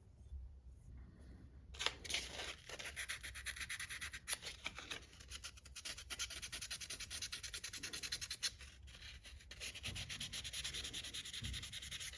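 Fine-grit sandpaper rubbed over an old, rusty pocket knife in quick, even back-and-forth strokes, starting about two seconds in: light sanding to take off rust and marks.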